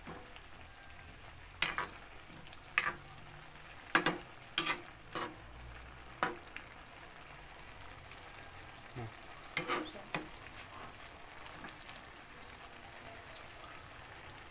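Metal ladle stirring vegetables in a steel wok, clinking sharply against the pan several times in the first half and twice about ten seconds in, over a low steady sizzle from the simmering pan.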